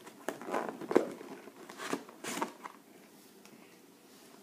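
Cardboard shoebox lid being pulled off and tissue paper crinkling: a run of short scrapes and crinkles over the first few seconds, loudest about a second in.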